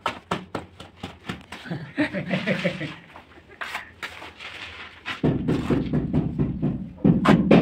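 Metal notched trowel clicking and scraping against a wall while spreading tile adhesive, in a quick run of short sharp strokes, with indistinct voices mixed in and growing louder in the second half.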